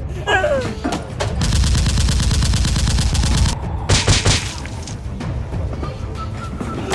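Automatic gunfire sound effect: a rapid burst of shots lasting about two seconds, then another short burst about four seconds in, over background music.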